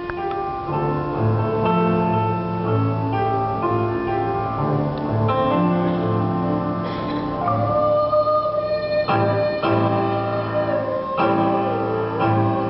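Music: a piano plays the introduction to a choir song. A little past halfway, a long held melody note comes in over it.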